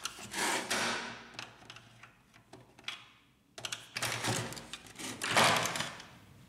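Plastic side panel of a Canon inkjet printer being pried off its tabs with a flat screwdriver: rapid plastic clicks and scraping as the tabs release, with the loudest scrape near the end as the panel comes away.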